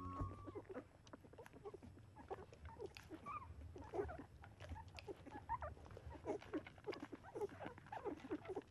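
Faint, irregular high squeaks and whimpers of newborn Labrador retriever puppies.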